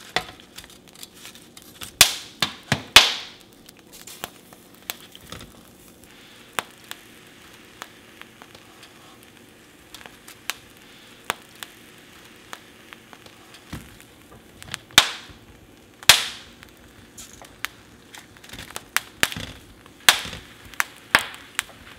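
Coarse sea salt heated in a foil-lined pan, ticking and popping as raw shrimp are laid onto it: irregular sharp clicks throughout, a few much louder cracks, over a faint sizzle.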